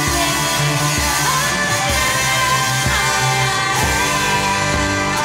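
Live prog-rock duo playing: electric guitar and keyboards over a pulsing low bass, with a woman's voice singing.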